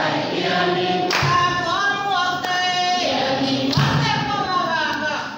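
A group of voices singing together as a choir, holding long notes that glide up and down between phrases.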